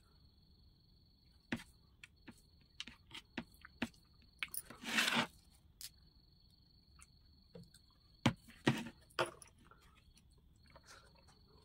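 Close-up mukbang eating sounds: chewing and mouth smacks, with fingers mixing rice on a plate, as scattered short clicks. About five seconds in there is a louder, longer scrape or rustle, and a few sharper clicks come close together near the end.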